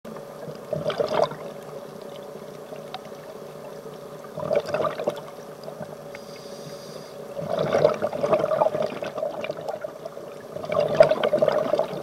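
Scuba diver's exhaled bubbles gurgling out of the regulator underwater, in four bursts about three seconds apart, over a steady hum.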